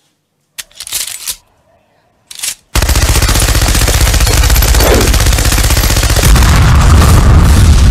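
Rapid automatic gunfire: two short bursts, then from about three seconds in a long, loud, unbroken stream of fire.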